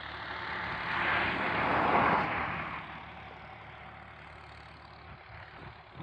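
A vehicle passing on the road: the rush of its engine and tyres swells about a second in, peaks around two seconds, and fades away by about three seconds.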